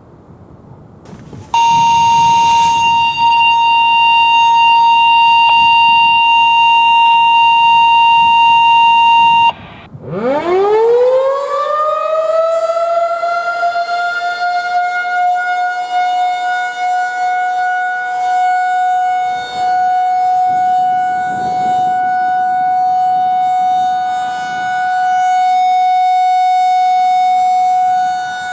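A steady high tone sounds for about eight seconds and cuts off. Then a Federal Signal 2001 electromechanical outdoor warning siren winds up from a low growl to a steady single-tone wail for a scheduled test. Its loudness swells and fades as the rotating head sweeps.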